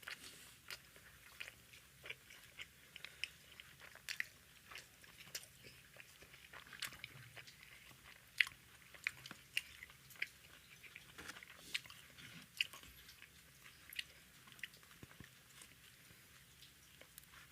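A person chewing and biting tandoori roti and naan with egg curry close to the microphone: a continuous run of sharp, irregular mouth clicks and smacks, a few each second.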